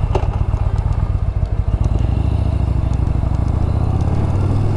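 Yamaha Bolt's air-cooled V-twin engine running under way. Separate firing pulses are heard at first, and they merge into a steadier note about two seconds in.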